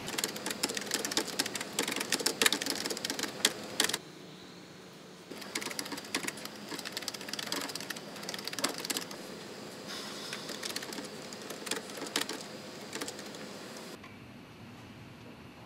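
Rapid typing on a computer keyboard, a dense clatter of key clicks that pauses for about a second after four seconds, then resumes and dies away near the end.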